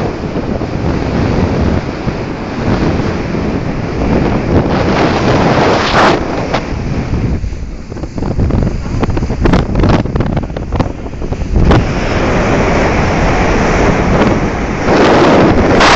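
Wind rushing over the microphone and water hissing as a rigid inflatable boat runs fast over the sea. A series of sharp knocks comes about halfway through, and the rush grows louder near the end.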